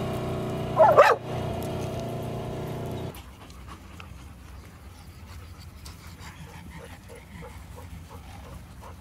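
Polaris side-by-side utility vehicle's engine running, with one loud, short cry from a dog about a second in. Just after three seconds in the engine sound stops abruptly, leaving quieter dog panting and soft whining, repeated every fraction of a second.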